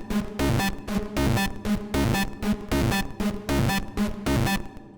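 Hard techno / schranz loop playing back: distorted kicks pulsing under a Serum 2 synth riff with reverb. It dies away near the end.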